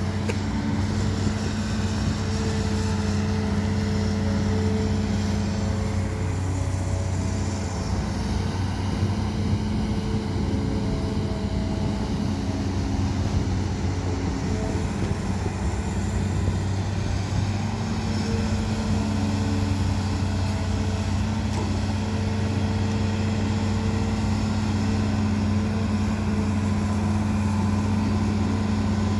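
Hitachi Zaxis 210LCH excavator's Isuzu diesel engine running steadily as the machine digs and swings, its drone shifting slightly in pitch every few seconds.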